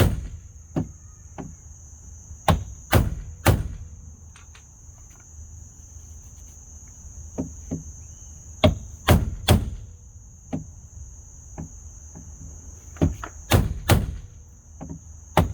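Hammer blows on the damaged mirror-mount area of a truck door, beating it flat, in quick clusters of two to four sharp strikes with short pauses between. A steady high insect chirring runs underneath.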